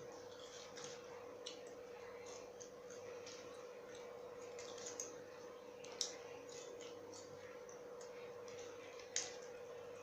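Soft scattered clicks and small crunches of someone eating homemade french fries, with two sharper clicks about six and nine seconds in, over a steady low hum.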